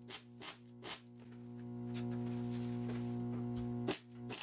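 Short crackling zaps of a MIG welder tack-welding a steel rocker panel, several in quick uneven succession at the start and two more near the end, over background music holding a steady chord.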